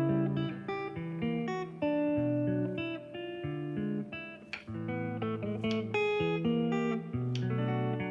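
Instrumental background music: a plucked guitar picking out a melody over changing bass notes.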